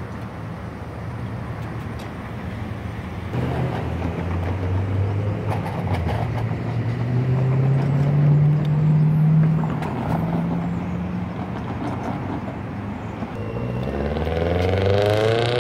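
Road traffic moving off over the crossing: car engines pulling away and accelerating past, their pitch rising, with one car accelerating close by near the end.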